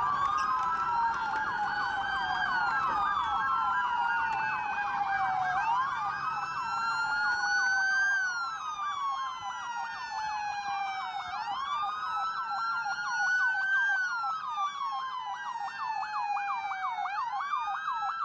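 Several police car sirens wail at once. Their slow rising and falling sweeps in pitch overlap and cross each other.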